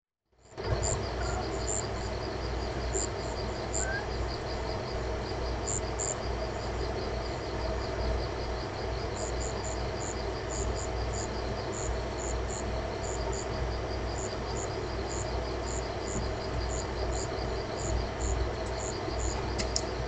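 Night insects chirping: a fast, steady pulsing trill with higher paired chirps that come and go, over a low steady rumble.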